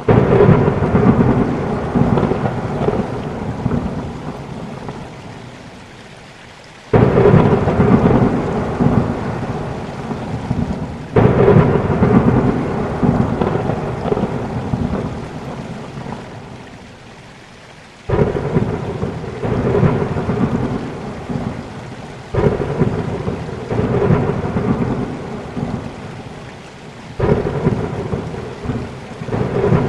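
Rain with repeated rolls of thunder: six rumbles that each start suddenly and fade away over a few seconds.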